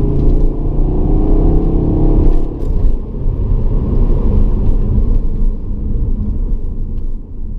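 Volvo C70 D5's five-cylinder turbodiesel engine accelerating, its pitch rising for the first two and a half seconds. About three seconds in it dips briefly, then goes on as a steady rumble that fades near the end.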